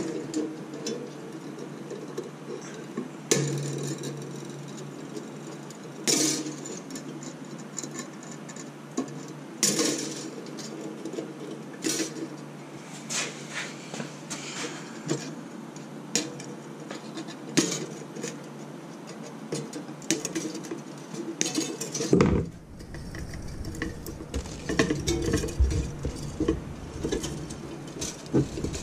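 Irregular clicks and clinks of pliers and wire against the metal frame of an ice maker's ice-cutting grid. A louder knock comes a little over twenty seconds in, after which lower bumping and rubbing sounds of the frame being handled join in.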